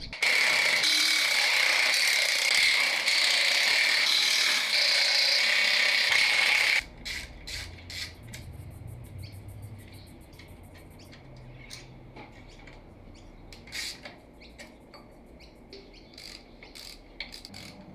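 A loud steady hiss for about seven seconds that cuts off abruptly, then quieter, scattered metallic clicks and ratchet-like ticking from hand tools working the subframe bolts.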